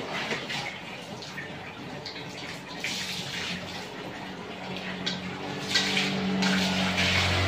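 Water poured from a plastic pitcher, splashing over a dog and onto a wet concrete floor in uneven gushes. A steady low hum joins in about halfway through and grows louder toward the end.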